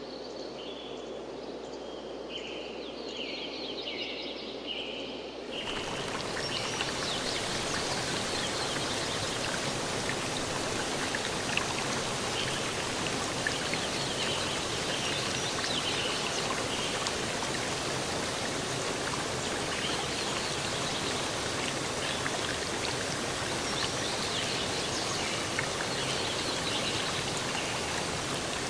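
Birds chirping in short repeated calls; about five seconds in a steady rushing of water starts abruptly and continues, with bird chirps still heard through it.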